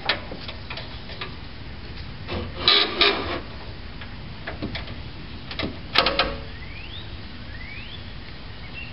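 Hand wrench working the 17 mm bolts of a rear shock absorber under a truck: scattered metal clicks and clanks of tool on bolt and mount, with two louder bursts of clanking about three and six seconds in.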